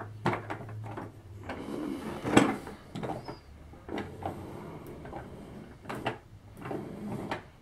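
Handling noise from a hard plastic toy ATV: several scattered knocks and clunks of the plastic body and wheels as it is turned over and set on a tabletop, with hands rubbing over the plastic between them. The loudest knock comes about two and a half seconds in.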